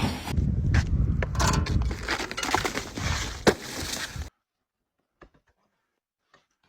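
Ice crunching and cracking, with many sharp cracks and a loud snap about three and a half seconds in; the sound cuts off suddenly after about four seconds.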